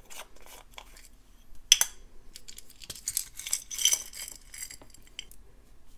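A small round bead container is opened with one sharp click, then glass beads and metal bead caps clink and rattle as they are tipped out of it, about three to four seconds in.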